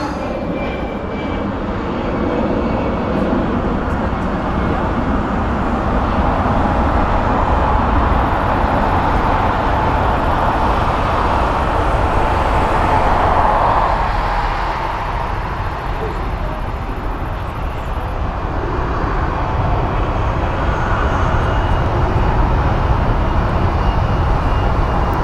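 Airbus A220 jet on its takeoff run, its Pratt & Whitney PW1500G geared turbofans at takeoff power: a steady jet roar with a whine that swells to its loudest about halfway through.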